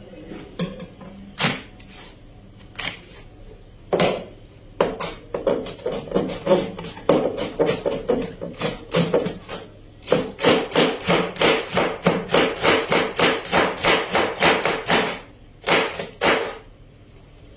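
Kitchen knife chopping a cabbage on a cutting board, each stroke knocking on the board: a few single cuts at first, then quicker chopping that settles into a fast, even run of about five strokes a second for several seconds, ending with a couple of single knocks.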